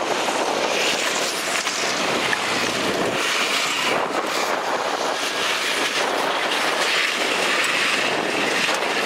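Wrecked single- and double-deck buses driving past on a racetrack, their engines running in a steady, noisy din that swells as a bus passes close about four seconds in and again near the end.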